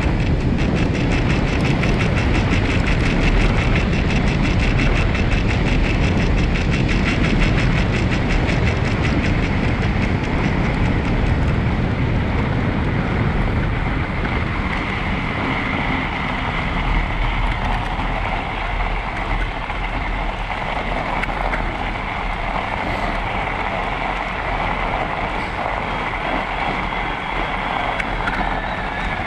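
E-bike riding along a packed snow trail: a steady rumble of tyres rolling and rattling over the snow, with wind rushing on the bike-mounted camera's microphone. A steady high whine joins about halfway through.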